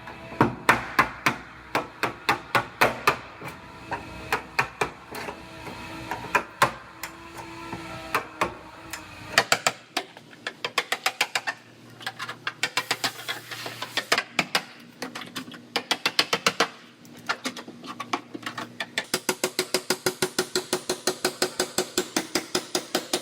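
Hammer striking car-body sheet metal again and again, in sharp separate blows that speed up to about four or five a second near the end.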